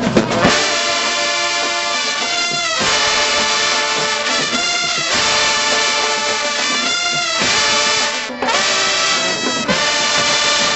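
Marching band brass section playing loud, held chords that change every second or two, with a short break about eight seconds in.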